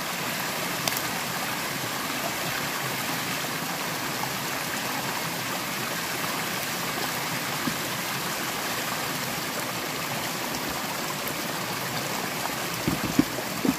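Small rocky mountain stream rushing steadily over stones and down a little cascade. A couple of low thumps come near the end.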